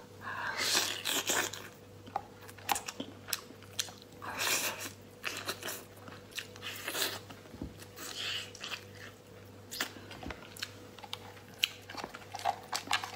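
Close-miked eating sounds of boiled lobster: wet chewing of lobster meat, with many short clicks and crackles as the shell and claw are pulled apart by hand.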